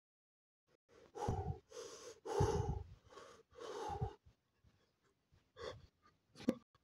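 A man breathing heavily in and out close to the microphone: five loud breaths in a row, then two short quicker breaths near the end.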